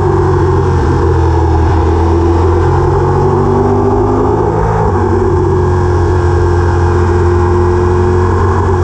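Engine of a moving vehicle running steadily under load, its pitch shifting about two and a half seconds in and changing again just before five seconds.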